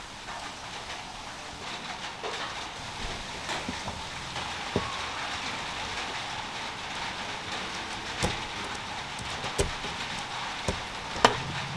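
Scattered small clicks and taps of metal and plastic parts as an RC servo's steering linkage is handled and screwed together with a hex screwdriver, the sharpest click near the end, over a steady hiss.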